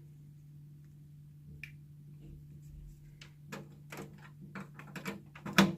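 Hands handling a Chromecast and its cables: a run of small clicks and taps starting about halfway in, the sharpest just before the end, over a steady low hum.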